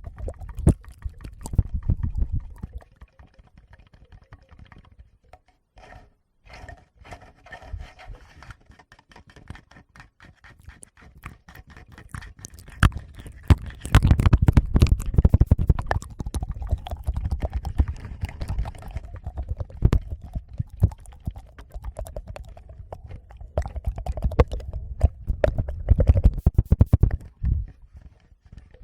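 Fingers tapping and rubbing directly on a Tascam recorder's microphones, giving heavy low thumps and scratchy rustling. There are dense loud stretches at the start, through the middle and near the end, with softer scattered clicking between.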